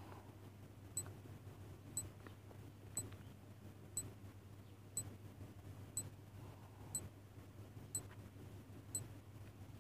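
Countdown timer tick sound effect, a sharp clock-like tick once a second, nine ticks in all, over a faint steady low hum.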